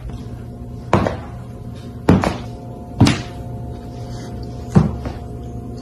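A slipper knocking against a hardwood floor as a cat walks with one front paw stuck in it. It gives about five irregularly spaced thuds, two close together about two seconds in, over steady background music.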